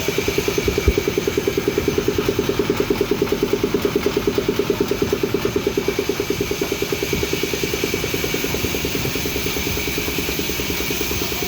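Band saw running steadily, with a fast, even pulsing under a steady hiss.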